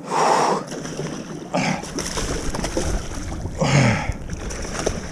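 Water splashing and sloshing in a few short bursts as a hooked muskellunge thrashes beside a kayak during the fight.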